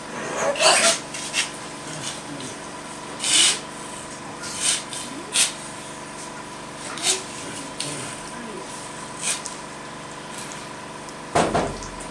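Short scraping or rubbing strokes, about ten at irregular intervals, each lasting a fraction of a second, over a faint steady hum.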